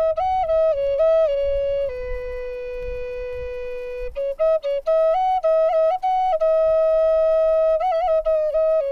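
Background music: a solo flute playing a slow melody line, stepping between a few notes, with two long held notes and a quick trill near the end.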